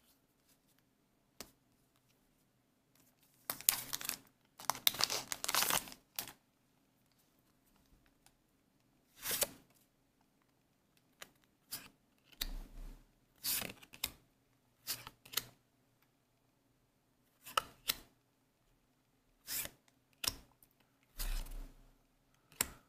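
A trading card booster pack wrapper being torn open, with a longer stretch of tearing and crinkling a few seconds in. It is followed by a scattering of short rustles and clicks as the cards are handled.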